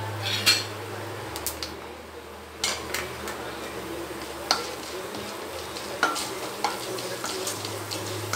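Mustard seeds, chana dal and urad dal sizzling in hot oil in a stainless steel pan, stirred with a wooden spatula, with scattered sharp clicks every second or so.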